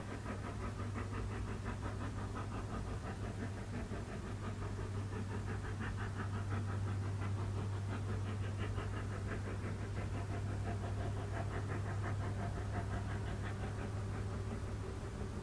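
Brienz Rothorn Bahn steam rack locomotive working hard uphill: its exhaust blasts come in a fast, even rhythm over a steady low hum.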